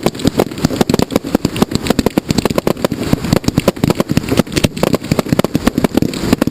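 Fireworks going off in a rapid, continuous barrage: a dense string of bangs and crackles, several a second, with no break.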